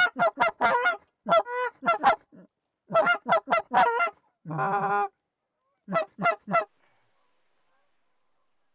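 Goose honking: quick runs of short, sharp honks, with one longer held honk about halfway, stopping about two-thirds of the way through.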